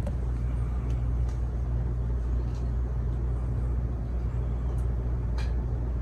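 52-inch Gulf Coast Raindance ceiling fan running with a steady low hum.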